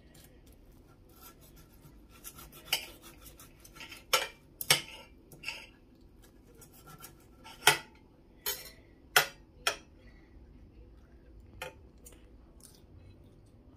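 Metal knife and fork clinking and scraping against a plate while cutting food, with about ten sharp clinks at irregular intervals.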